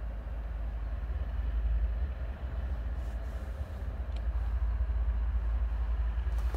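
Diesel locomotives of a freight train running in the distance: a steady low rumble.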